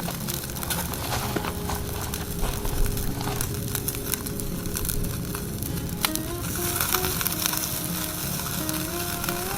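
Chicken-skin skewers grilling over charcoal: steady sizzling with frequent small crackles as fat drips onto the coals. Background music with a simple melody plays alongside, more noticeable in the second half.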